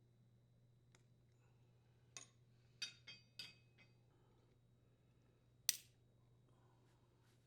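Small, sharp clicks and clinks of dishwasher door hinge parts being handled as the bushing and bumper are moved onto a new hinge: a quick cluster of clicks two to three and a half seconds in, and one sharper click near six seconds.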